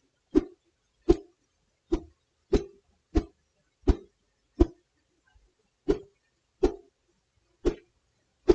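A stick swung or yanked hard through the air as a foley whoosh for a thrown punch: eleven quick, sharp swishes, about one every 0.7 seconds, with a short pause midway.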